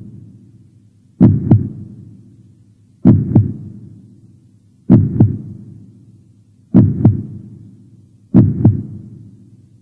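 Heartbeat sound effect: a slow, deep 'lub-dub' double thump repeating five times, about every two seconds, each beat dying away in a low rumble.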